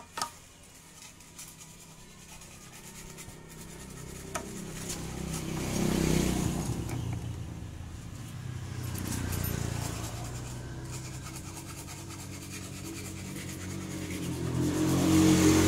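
Engine sound of passing motor vehicles, swelling and fading three times. Near the start there are a few light metal clicks as the flywheel rotor is fitted onto the crankshaft by hand.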